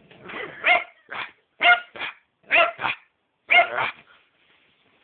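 A dog barking repeatedly, mostly in quick double barks about once a second, stopping shortly before the end.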